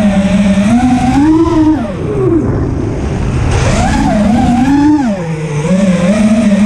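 FPV racing quadcopter's brushless motors whining, the pitch rising and falling with the throttle. About two seconds in the whine drops away and nearly fades for a second and a half, leaving a rush of wind noise, then climbs back and dips again near the end.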